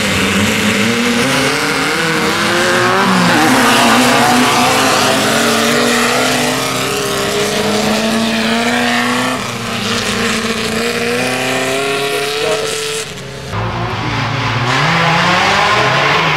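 Off-road race buggy engines at high revs, winding out and shifting, several overlapping, their pitch climbing and dropping. The sound breaks off suddenly about 13 seconds in, then another engine revs up.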